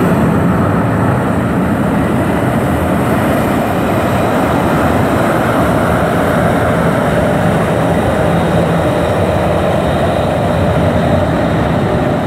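Boeing 737-700's two CFM56-7 turbofan engines running at taxi power as the jet taxies past and turns away: a loud, steady jet engine roar.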